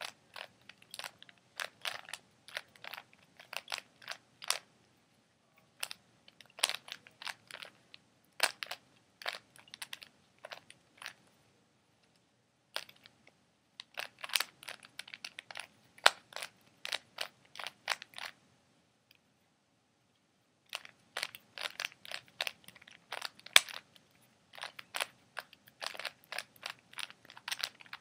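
A Rubik's Cube being turned quickly by hand: rapid runs of plastic clicks and clacks as the layers snap round, broken by three short pauses.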